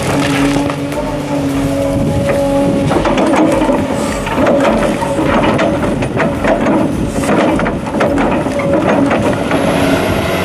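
Heavy diesel machine running steadily, with repeated cracks and knocks of wood breaking.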